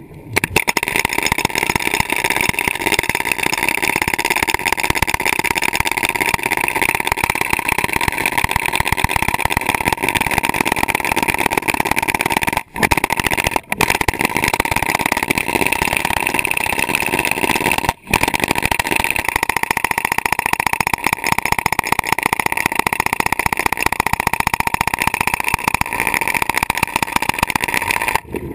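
Underwater hydraulic hammer breaker (Stanley) pounding rock, a fast, steady rattle of blows with a few brief breaks.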